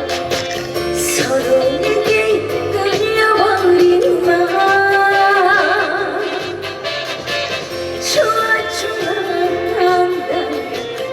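A woman singing a Korean trot song over band accompaniment, with long held notes that waver in pitch.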